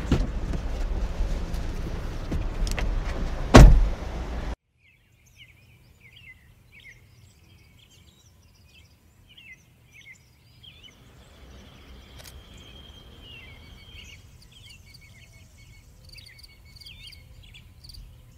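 Car cabin noise while driving, a steady low rumble, with a heavy thump about three and a half seconds in. It cuts off suddenly to quiet outdoor air with small birds chirping.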